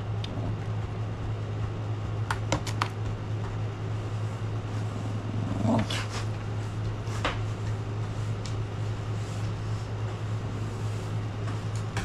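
A steady low machine hum runs throughout, with a few light clicks about two seconds in and a couple of short squeaky sounds around the middle.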